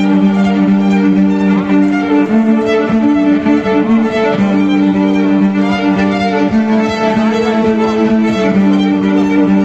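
Violin playing a slow live solo of long held low notes, two sounding together, the pitch shifting every second or two.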